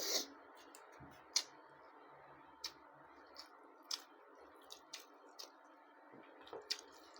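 A person eating with their mouth close to the microphone: wet mouth clicks and lip smacks at irregular intervals over a faint steady hum, with one sharper smack about a second and a half in.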